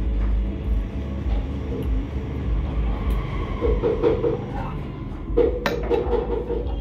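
Close-up eating sounds: chewing a mouthful of jhol momo, with a sharp clink of cutlery against the bowl about five and a half seconds in, over a steady low rumble.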